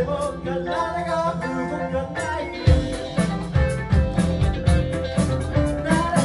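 Live rock band playing: electric guitar over bass and drums. The bass and kick drum drop away for the first couple of seconds, then come back in with heavy drum hits about two and a half seconds in.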